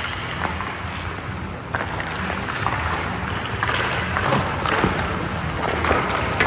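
Skates scraping and carving on rink ice, with a steady low hum underneath and a few sharp knocks of sticks, pucks or goalie pads.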